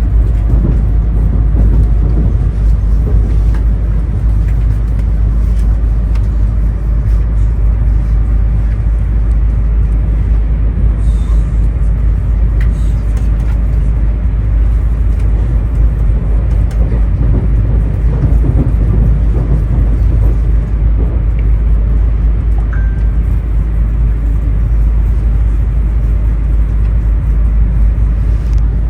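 Steady loud rumble and noise of a Shinkansen train, even throughout with no distinct coupling clank.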